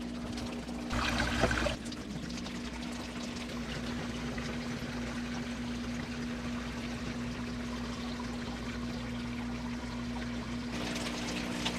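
Aquarium siphon hose draining tank water into a plastic trash can: a steady pouring, trickling flow, with a louder rush about a second in and a steady low hum underneath.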